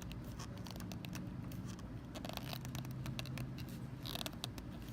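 Light clicks and scuffing of a 1/2 inch PVC cap being pushed onto PVC pipe and twisted to spread the fresh solvent cement, with a couple of louder scrapes about two and four seconds in, over a steady low hum.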